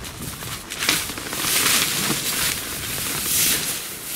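Synthetic tent fabric rustling and swishing in several swells as it is folded and pressed flat by hand.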